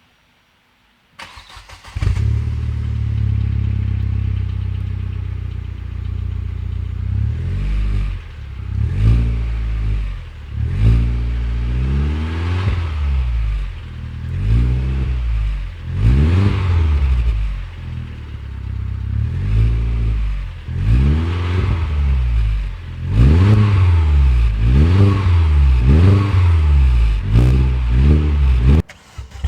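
Opel Astra H GTC's 2.0-litre Z20LEL turbocharged four-cylinder, breathing through a Friedrich Motorsport muffler, starts up and settles into idle. It is then revved again and again in short blips that rise and fall, coming quicker near the end.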